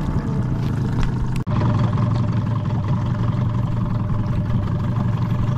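Yamaha 9.9–15 outboard motor running steadily, freshly pull-started. The sound drops out for an instant about one and a half seconds in.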